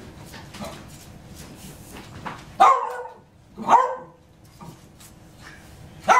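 A dog barking: three loud barks, two of them about a second apart and the third near the end.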